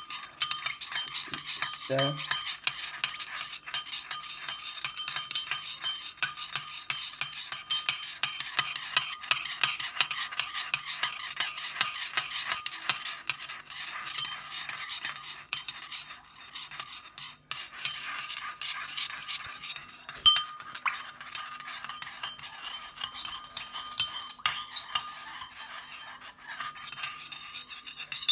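A metal spoon stirring sugar and white wine vinegar in a small glass bowl, scraping and clinking rapidly and continuously against the glass.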